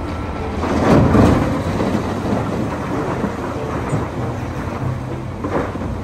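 Heavy diesel machinery running steadily while a loader tips a bucketful of loose earth into a dump truck's steel bed. The load pours in with a rushing rumble that surges about a second in and again near the end.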